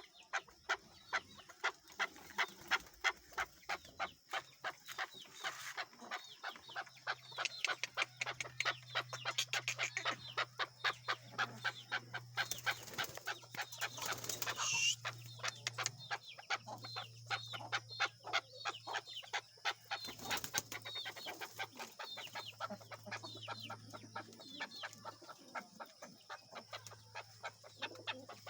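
Chukar partridge calling: a long, rapid run of repeated clucking notes.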